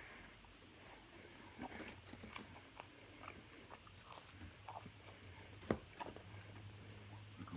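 A person chewing pizza: soft, irregular wet mouth clicks and smacks, with one sharper click a little past halfway.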